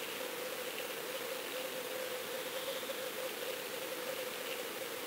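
Underwater sound picked up by a fishing camera in its sealed housing on the surf bottom: a steady hiss with a constant hum and a few faint ticks.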